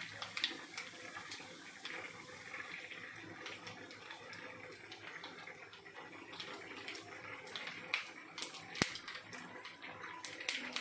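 Mustard seeds spluttering in hot oil for a tempering: a steady sizzle with sharp pops scattered throughout, coming thicker near the end.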